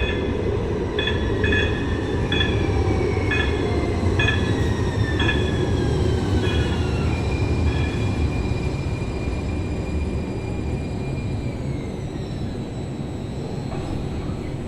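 Two-car Muni Metro light-rail train arriving at an underground platform: a low rumble of wheels on rail with short, repeated high squeals over the first eight seconds or so, then falling whines as it slows.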